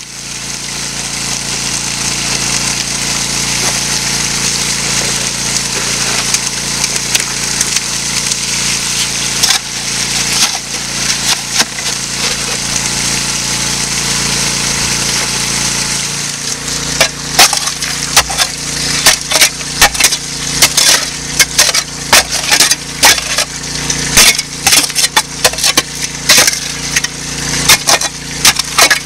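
Small engine-driven water pump running steadily, with water rushing through a highbanker. About halfway through, a rapid, irregular clatter of rocks and gravel starts and keeps going.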